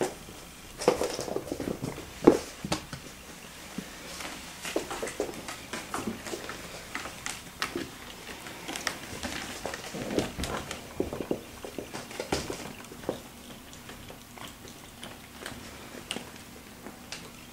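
Ragdoll kittens play-fighting: irregular scuffles, paw pats and light knocks on the floor and cat tree, with a few louder knocks in the first few seconds.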